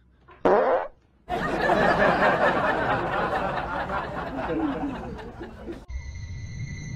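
A short loud sound about half a second in, then a person laughing hard and steadily for about four and a half seconds, which stops abruptly at a cut.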